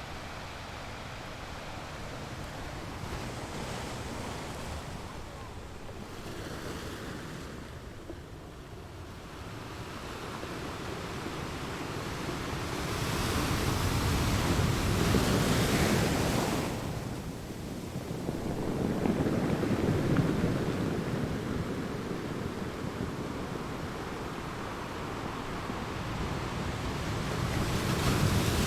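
Ocean waves breaking and washing on the shore, rising and falling in slow surges, with the biggest wave about halfway through and others near 20 s and at the end. Some wind is mixed in.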